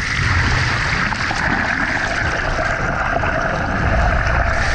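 Muffled, steady rushing and gurgling of water heard through a camera held under the surface, with a low rumble beneath it.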